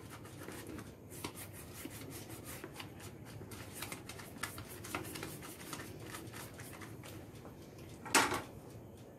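Silicone pastry brush rubbing and dabbing oil inside a silicone cake mould: faint brushing with many small ticks, then one sharper knock about eight seconds in.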